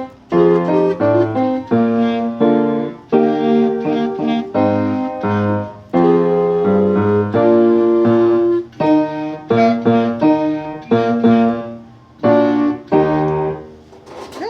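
Piano playing a melody over chords and bass notes in short phrases, closing on a final chord that dies away near the end.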